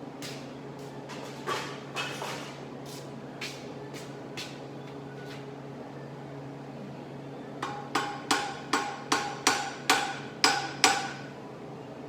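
Hammer tapping a clamped steel bar to nudge it into line before tack welding: a few scattered light taps, then a run of about nine ringing strikes, roughly three a second, near the end. A steady low hum runs underneath.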